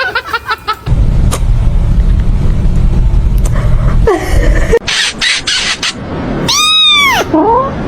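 A loud, steady low rumble for a few seconds, then a cat's short meow that rises and falls in pitch near the end.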